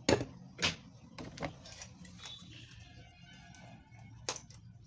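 A few sharp clicks and knocks from hand tools and parts being handled while a memory chip is taken off a spare circuit board. The loudest come right at the start, with another about four seconds in. Faint music plays in the background from about two seconds in.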